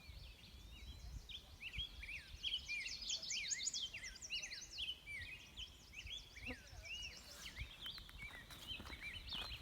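Many small birds chirping and calling at once, a dense chorus of short whistled notes and quick up-and-down sweeps. A few sharp clicks near the end.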